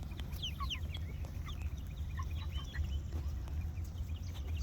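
A group of young Cornish Cross meat chickens peeping and clucking: many short high chirps scattered throughout, over a steady low rumble.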